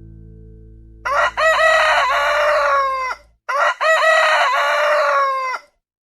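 A rooster crows twice, one crow right after the other, each about two seconds long: a few short notes leading into a long held call that drops away at the end.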